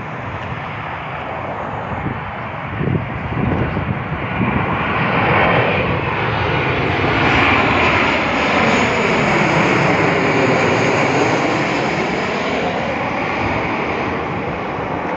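Airliner engines roaring as the plane flies past, growing louder over the first several seconds and then staying loud. A hollow whooshing tone falls and then rises again as it passes.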